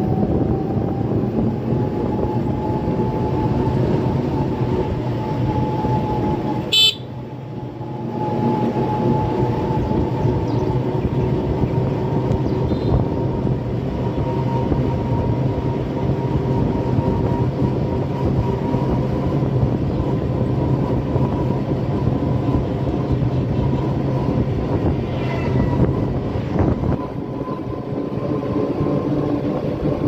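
A vehicle's motor running steadily on the move, with a low hum and a thin whine that climbs slowly in pitch. A sharp click about seven seconds in, after which the sound drops quieter for a second or so.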